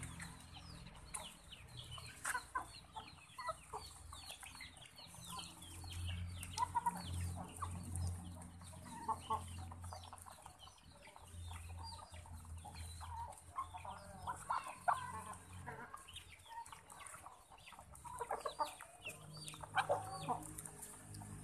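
A feeding flock of chickens clucking, with many short, high, falling peeps and scattered pecking clicks of beaks at the feed.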